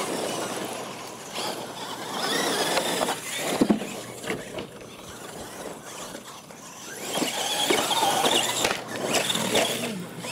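Radio-controlled monster trucks racing over dirt: their electric motors and gearboxes whine in rising and falling surges as the trucks accelerate, with a sharp knock about three and a half seconds in.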